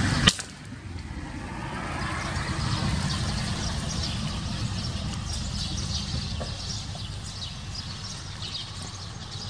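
A single sharp rifle shot fired at a dove perched on a wire, about a third of a second in. It is followed by a steady low rumble of street traffic, with small birds chirping faintly throughout.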